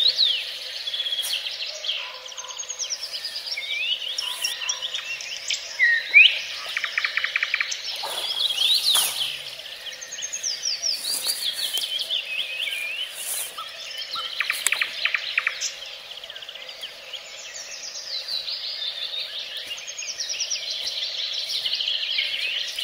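Several songbirds singing at once: a dense, unbroken chorus of trills, whistled glides and rapidly repeated notes.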